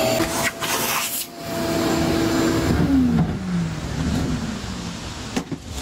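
Vacuum cleaner running with its hose in the car's rear top well, sucking up buildup; a steady motor whine, with a lower tone that falls in pitch about three seconds in.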